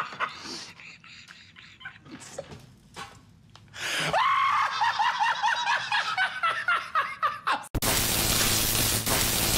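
A man laughing hard: quiet snickers at first, then loud rhythmic bursts of laughter from about four seconds in. Near the end the laughter is cut off by a sudden, steady loud hiss.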